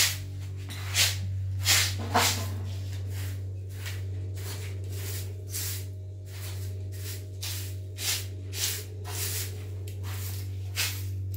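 Straw hand broom sweeping a carpet: short, repeated swishing strokes, about two a second, over a steady low hum.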